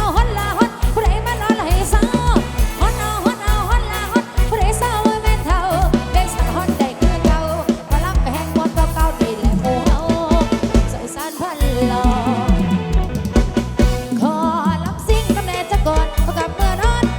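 Loud live Isan dance-band music from a rot hae sound truck: a steady drum-kit and bass beat under a bending melodic lead.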